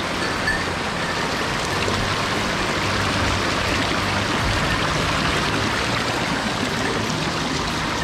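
Mountain stream water flowing, a steady even rush of moving water.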